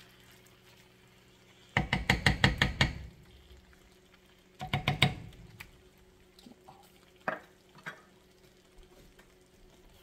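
Wooden spoon stirring pasta in an enameled cast-iron Le Creuset skillet, clacking against the pan in a rapid run of strokes about two seconds in and a shorter run about five seconds in. Two single knocks follow a couple of seconds later.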